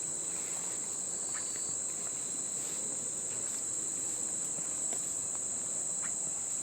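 A steady, high-pitched chorus of insects droning without a break, with a few faint ticks.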